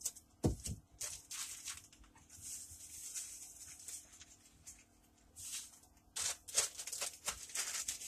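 Plastic bags crinkling and rustling in the hands as coating mix is poured from its packet into a zip-top bag, with a low thump about half a second in.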